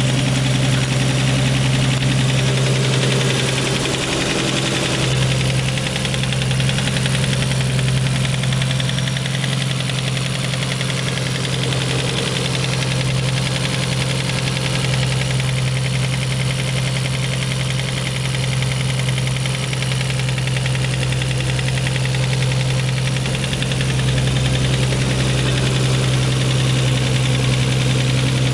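Nissan RB26 twin-turbo straight-six running steadily at idle with a fast, loud clacking from inside the engine. The owner suspects a spun bearing, piston slap or loud injectors.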